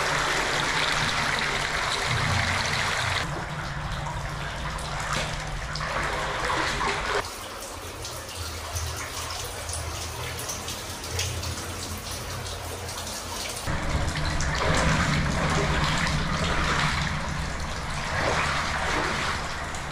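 Water of an underground brook running and splashing through a culvert, a steady rush. Its character changes abruptly three times, about 3, 7 and 14 seconds in.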